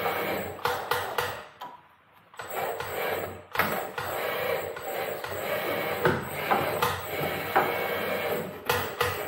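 Thin sheet metal being cut and handled with hand tools: irregular sharp clicks and metallic knocks over a steady hiss, with a short pause about two seconds in.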